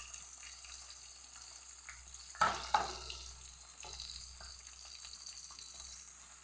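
Sliced onions, green chillies and curry leaves frying in hot oil in a kadai, a faint steady sizzle. Two sharp knocks about two and a half seconds in.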